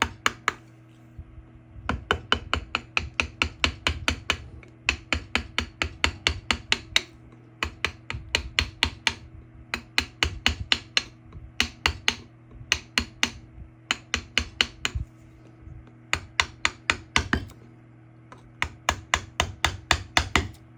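A carving chisel being driven into wood with a mallet during rough-out carving: quick, even strikes at about four a second, in runs of a few seconds broken by short pauses. A steady low hum runs underneath.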